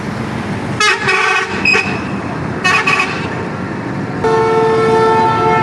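Vehicle horn honking three times, the last a long blast, over steady road traffic noise.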